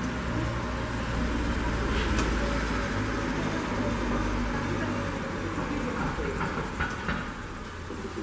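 Low rumble of a passing vehicle's engine, fading about halfway through, over a steady background hum.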